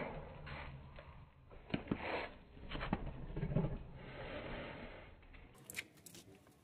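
Faint rustling and handling noises with a few soft clicks.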